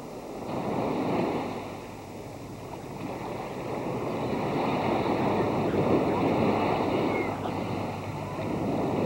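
Small surf breaking and washing up the sand at the water's edge, a steady hiss that swells and eases a few times.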